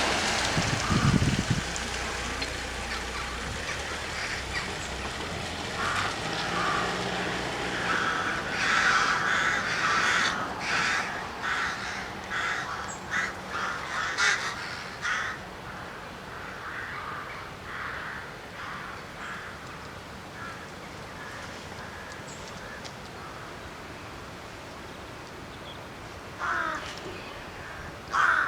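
Crows cawing repeatedly, a flurry of calls in the first half and a few more near the end. A low rumble from the train that has just passed fades out in the first second or two.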